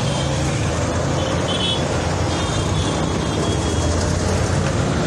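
Steady engine and road noise of a vehicle riding through town traffic among motorbikes, its low engine hum shifting slightly in pitch.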